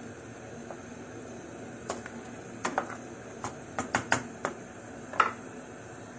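Wooden spoon tapping and knocking against the side of a stainless steel pot while stirring soup, about nine irregular sharp clicks over a steady low background hiss.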